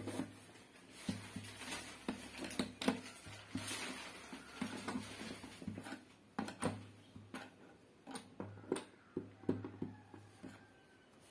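Metal tip of a screwdriver-style mains tester clicking and scraping in the holes of an extension board's plastic sockets: a run of irregular small clicks and knocks as it is poked from hole to hole.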